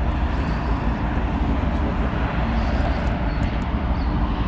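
Steady wind rumble buffeting an open-air camera microphone, heaviest in the low end, with a few faint ticks about three seconds in.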